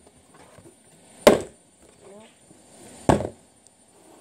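A partly filled plastic water bottle thrown in bottle flips hits a table with a hard thud twice, about a second in and again about three seconds in.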